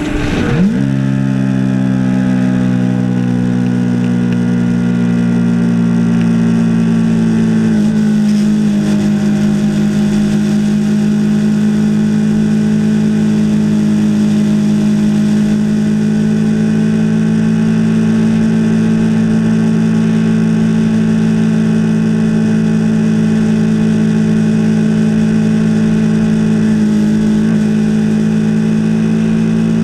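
Yamaha R3's 321 cc parallel-twin engine running under way. Its note drops sharply just after the start, as at an upshift, then climbs slowly. It breaks briefly about eight seconds in and then holds a steady cruising note.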